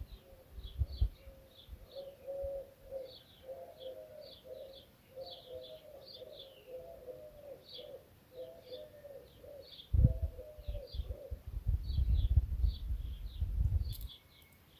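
Garden birdsong: a dove cooing in a low, repeated phrase that stops about eleven seconds in, over steady high chirping from small birds. A low rumble comes in near the end.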